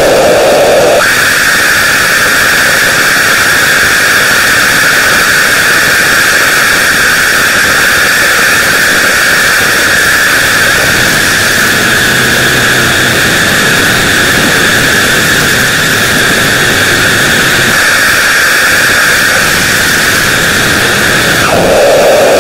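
Loud, steady wall of hissing noise with no pitch or rhythm. Its strongest band jumps up to a higher register about a second in and drops back down near the end.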